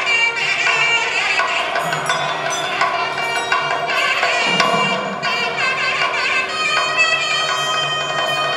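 Traditional temple music: a reedy wind-instrument melody over a steady drone, with percussion.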